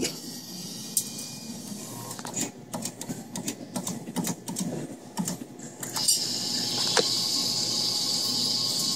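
Irregular clicks and ticks of a claw machine's mechanism being worked, then a steady hiss from about six seconds in that stops near the end.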